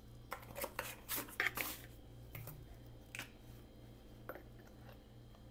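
Faint clicks and scrapes of small containers being handled: a plastic lid twisted onto a glass jar of baking soda in a quick run of clicks during the first two seconds, then a couple of single clicks as a spoon and bottle are picked up.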